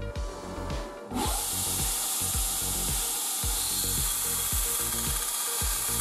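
Belt grinder grinding a small steel plate, a steady noise that starts suddenly about a second in and runs on evenly, over background music with a steady beat.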